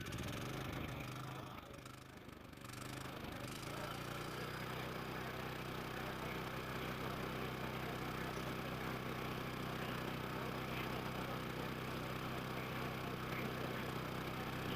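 Inverter generator's small engine running steadily with an even low hum. The sound dips briefly about two seconds in, then settles back to a constant level.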